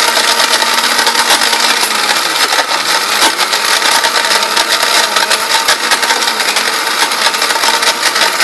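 1600-watt National mixer grinder running at full speed, grinding dried turmeric to powder in its small stainless steel jar. A loud steady grinding whir whose motor pitch wavers slightly.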